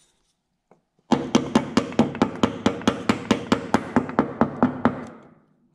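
Small wooden-handled hammer tapping a metal retaining clip into place on a clutch hydraulic hose bracket. About twenty quick, even taps come at about five a second, each with a short metallic ring. They start about a second in and die away near the end.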